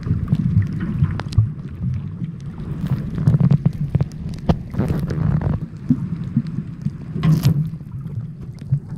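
Underwater ambience recorded by a submerged camera: a steady low rumble with scattered sharp clicks, and two brief hissing rushes about five and seven seconds in.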